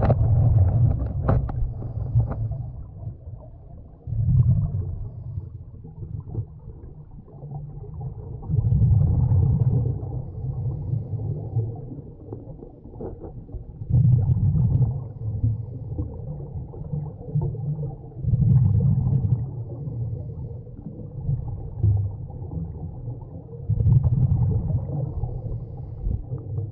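Scuba regulator underwater with the diver breathing through it: a low, rumbling burst of exhaled bubbles about every four to five seconds, six times, with quieter water noise between breaths.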